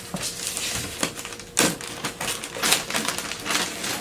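Rapid clicking and clattering of hand tools and small parts being handled on a wooden workbench, with a louder knock about a second and a half in.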